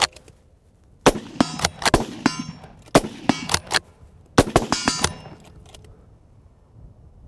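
Two .308 rifles, a Merkel Helix straight-pull and a Mauser M03 bolt-action, fired in quick succession in a rapid-fire speed trial, mixed with ringing metallic clacks as the bolts are cycled between shots. The shots and clacks come in three quick clusters, starting about a second in, about three seconds in and just after four seconds.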